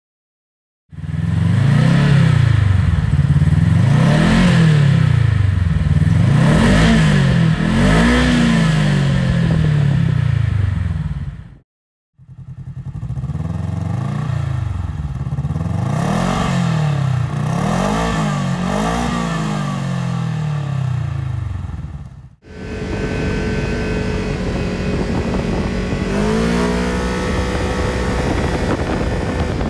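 Kawasaki Teryx KRX 1000's parallel-twin engine through an HMF Titan-QS slip-on exhaust, revved up and down again and again in two takes. It then settles into a steadier run under way, with wind noise and a brief rise in pitch near the end.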